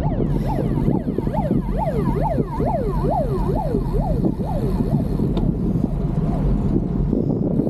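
Emergency-vehicle siren on a yelp cycle, rapid rising-and-falling wails about three a second, over a steady low rumble. The siren fades out about five seconds in.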